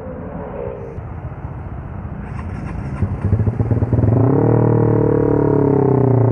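Motorcycle engine running, growing louder about three seconds in, then settling into a loud, steady drone from about four seconds in.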